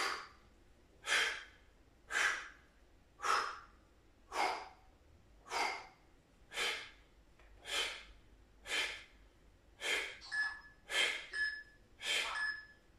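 A man breathing hard and rhythmically from exertion during scissor-kick leg crossings, one sharp breath about every second.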